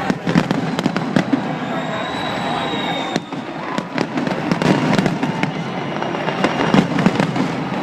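New Year fireworks display: a rapid, irregular string of bangs and crackles from bursting shells, with a few thin whistling tones, over the voices of a crowd.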